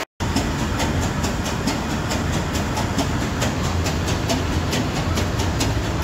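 MAN B&W two-stroke slow-speed marine diesel engine running at dead slow astern: a steady low drone with a fast, regular ticking, about four ticks a second.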